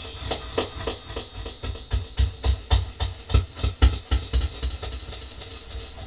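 Electronic echo-effect sound through a microphone setup: a rapid, regular pulsing of about five pulses a second under a steady high-pitched tone that grows louder about two seconds in.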